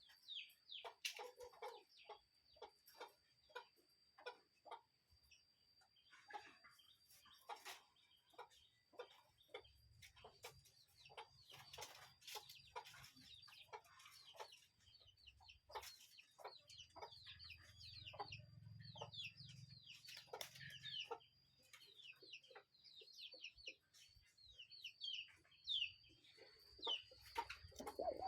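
Birds calling in a quick, irregular run of many short chirps and clicks, many of them falling in pitch, over a faint steady high-pitched whine.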